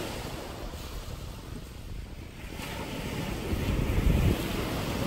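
Wind rumbling on the microphone over the wash of ocean surf, swelling louder about four seconds in.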